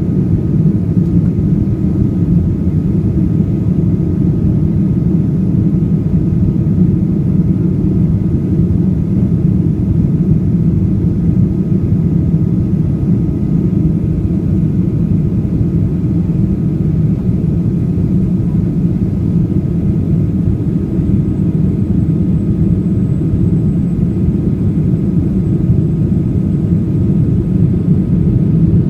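Boeing 737-800 cabin noise in flight: the steady low rumble of the CFM56 jet engines and airflow, even throughout, with a faint steady tone above it.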